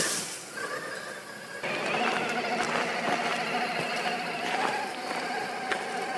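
Electric motor and gear whine of an Axial SCX6 1/6-scale RC crawler driving slowly over a rocky trail, a steady whine that wavers a little in pitch with the throttle. It cuts in louder about a second and a half in, with a few light clicks.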